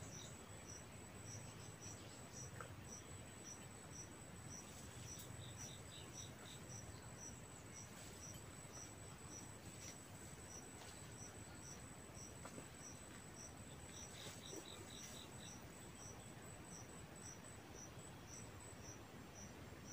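Insects chirping faintly. One repeats a short, high chirp about twice a second over a steady high tone, and another adds brief runs of quicker chirps twice, about a quarter of the way in and again about three-quarters through.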